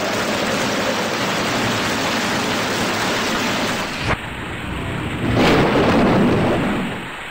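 Heavy steady rain. About four seconds in there is a sharp crack of thunder, and a louder rumble of thunder follows a second later and fades near the end.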